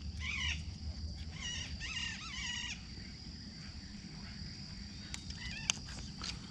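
Steady high-pitched insect drone, with three bouts of short, quickly repeated animal calls and a few sharp clicks in the second half.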